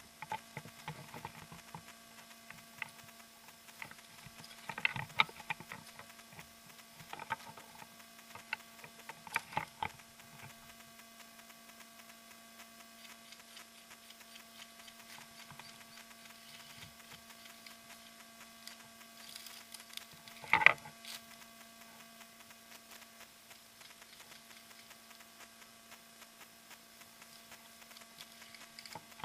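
Footsteps crunching and rustling through dry brush and fallen twigs, in scattered bursts over the first ten seconds, with one sharp crack or knock about twenty seconds in. A steady electrical hum runs underneath.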